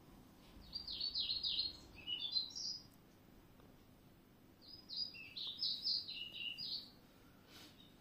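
A small songbird singing two phrases of quick, high, falling notes, each lasting a little over two seconds, the second starting about two seconds after the first ends.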